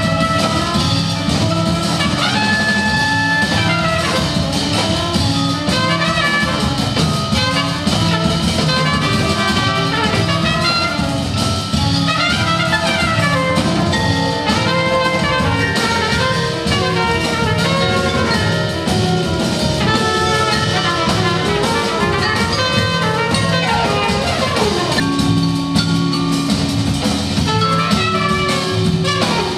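Live jazz orchestra playing: brass horns over drum kit in a dense ensemble texture, with sliding pitches partway through and a long falling slide near the end.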